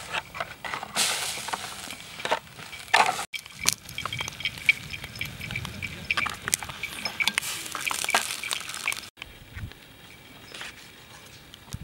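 Food frying in a wok, with hissing and metal tongs clinking against the pan. Near the end, quieter light knocks of a knife cutting on a wooden board.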